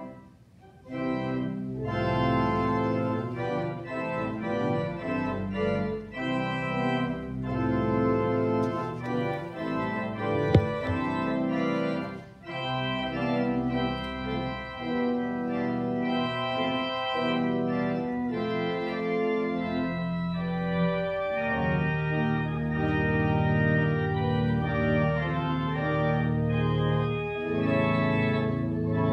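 An organ playing held chords, starting about a second in after a brief pause, with a single sharp click about ten seconds in.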